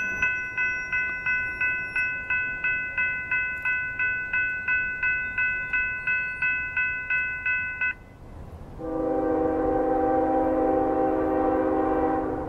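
A railroad crossing bell ringing at a steady pace of about three strikes a second, stopping about eight seconds in. Then a single long blast, about three and a half seconds, on an approaching Norfolk Southern freight locomotive's horn, a steady chord of several notes.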